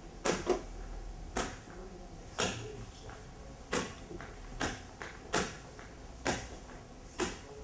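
Felt eraser wiping a whiteboard in short rubbing strokes, about one a second, as the board is cleaned.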